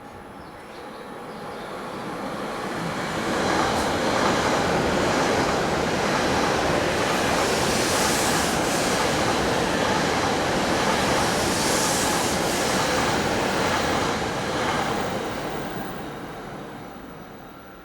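A train running past: the rumble of wheels on rail swells up over a few seconds, holds loud for about ten seconds, then fades away.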